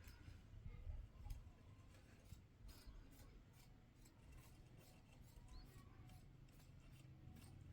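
Near silence: a faint low hum with scattered small clicks and taps, typical of handling things.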